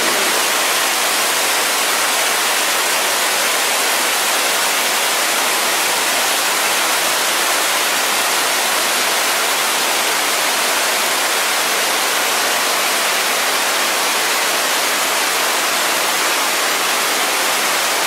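Waterfall cascading over rock into a pool: a steady, unbroken rush of falling water.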